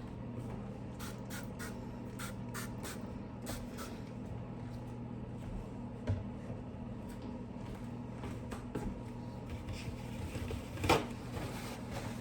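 Kitchen clean-up sounds: small clicks and scrapes over a steady low appliance hum, with a knock about six seconds in and a louder clunk near the end, like a cupboard door or an object set down.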